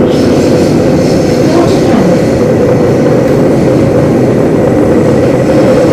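A Singapore Downtown Line MRT train running through a tunnel, heard from inside the carriage: a loud, steady rumble and hum of wheels and traction equipment.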